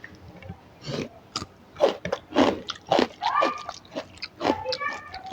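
Close-up chewing and biting of a rice-and-curry meal: irregular wet smacks and clicks of the mouth, some sharp and loud.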